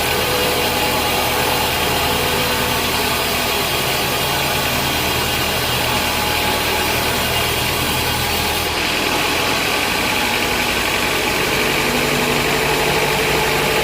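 Vertical band saw at a sawmill running with a steady mechanical hum and noise. About nine seconds in the sound changes: the deep hum drops and a brighter hiss comes up.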